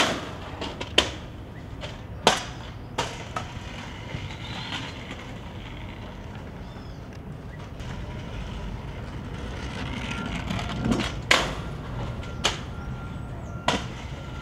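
Stunt scooter rolling on hard ground, with sharp clacks of the deck and wheels striking the ground, several near the start and a few more near the end.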